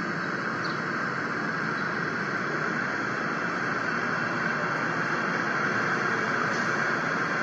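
LEGO train's electric motor and plastic wheels whirring steadily as the train rolls along the plastic track, getting slightly louder toward the end.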